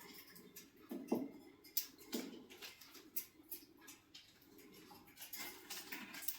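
A pair of cockatiels mating: soft squeaks and scratchy rustling in irregular short bursts.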